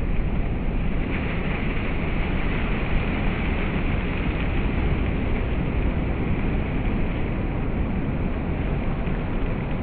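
Heavy ocean surf breaking over a rock breakwater: a steady rush of breaking waves and spray over a deep rumble, the hiss of spray growing brighter about a second in for a few seconds.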